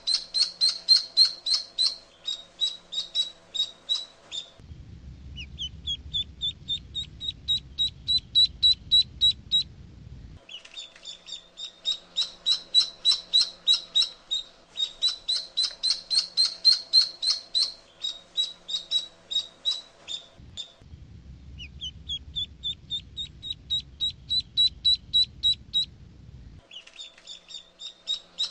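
Duckling crying: rapid runs of shrill, high peeps, about five a second, in stretches of several seconds. In two stretches the first few peeps start lower and slide up in pitch, over a faint low rumble.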